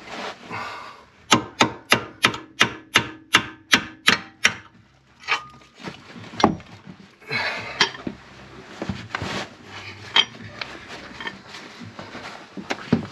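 Hammer blows knocking the remains of a rivet out of a steel suspension bracket: a quick run of about ten sharp knocks at roughly three a second, then a few single knocks and some scraping and rubbing as the rivet comes free.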